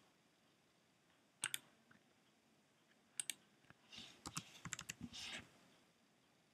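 Faint clicks of a computer mouse and keyboard keys: a pair about a second and a half in, another pair near three seconds, then a quick run of clicks and keystrokes lasting about a second and a half near the end.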